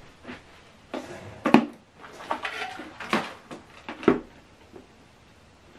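Handling noise from a soundbar subwoofer cabinet being turned around and its HDMI cable shifted: a series of irregular knocks, clicks and scrapes. The sharpest knock comes about a second and a half in, and a cluster of knocks follows around three to four seconds.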